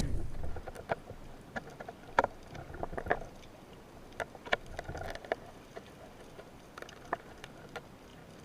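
Water sounds: scattered small splashes and irregular clicks with a faint low rumble, typical of a diver's action camera in the sea.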